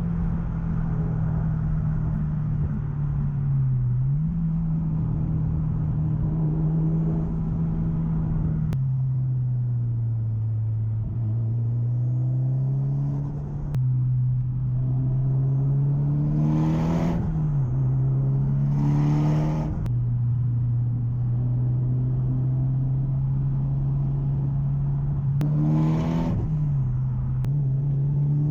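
Tuned turbocharged Mitsubishi Lancer Evolution X GSR 2.0-litre four-cylinder (4B11T) heard from inside the car, driving with a steady engine drone. It accelerates hard three times, the engine note rising in pitch on each pull and ending in a short sharp noise as it lifts off for a shift.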